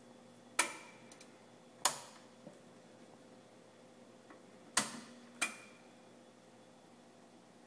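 Toggle switches on a Schulmerich carillon control panel clicking: four sharp clicks, the last two close together about five seconds in, over a faint steady hum.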